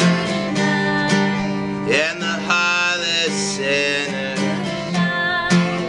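Strummed acoustic guitar played unplugged, with voices holding long, wavering notes over it.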